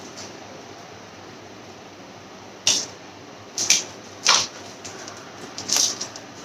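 Plastic packaging and a paper insert rustling in a few short crinkles as a lens packet is handled and opened, starting about three seconds in after a quiet stretch of room tone.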